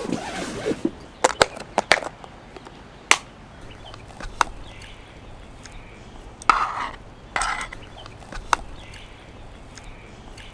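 Scattered sharp knocks and clicks of things being handled and set down, with two short bursts of rustling about six and a half and seven and a half seconds in.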